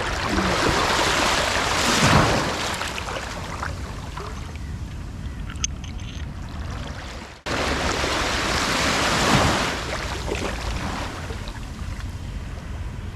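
Sea waves breaking and washing up the beach, swelling twice, about seven seconds apart.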